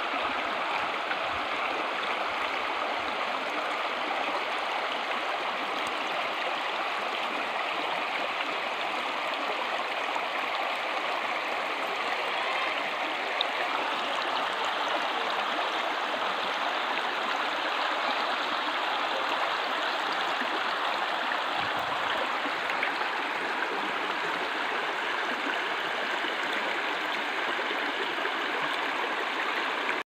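Shallow brook babbling over rocks and pebbles: a steady rush of running water.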